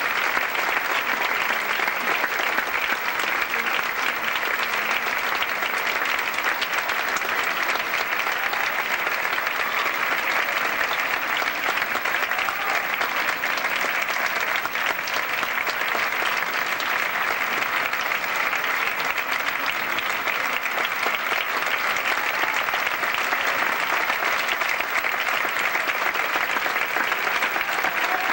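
Theatre audience applauding: dense, even clapping that stays steady throughout, at the curtain call at the end of a ballet performance.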